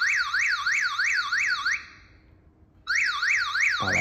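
Smartwatch speaker sounding its help-mode emergency alarm: a high siren tone sweeping up and down about three times a second. It comes in two bursts, stopping a little under two seconds in and starting again about a second later.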